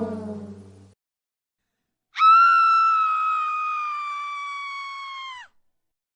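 A single long, high-pitched scream, held for about three seconds with its pitch sagging slightly before it cuts off abruptly. Before it, the tail of a musical chord fades out during the first second.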